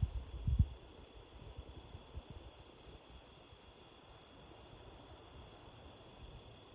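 Wind buffeting the microphone: low rumbling gusts, strongest about half a second in, then easing to a quieter steady hiss.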